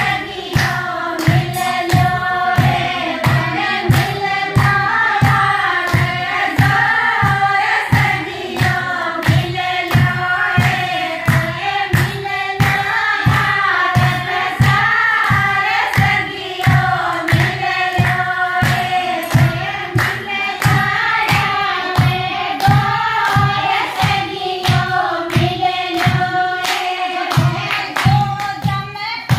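A group of women singing a Marwari devotional bhajan together, with a steady beat keeping time.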